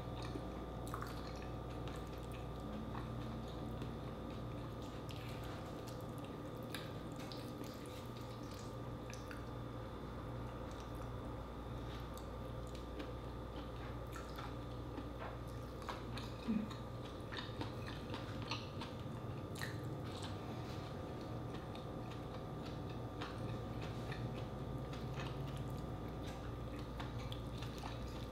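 Close-miked chewing and wet squishing of soft food eaten by hand from a sauce-filled dish, with scattered small mouth clicks and smacks over a steady faint hum.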